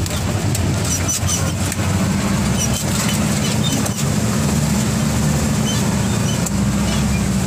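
Truck engine running steadily inside the cab as the truck crawls over a rough gravel track, rising in pitch about two seconds in. Scattered knocks and rattles come from the cab and load as it jolts over the stones.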